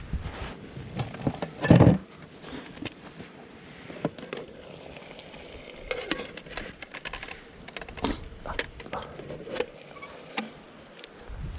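Irregular knocks, clicks and light rattles of objects being handled, with one louder thump about two seconds in.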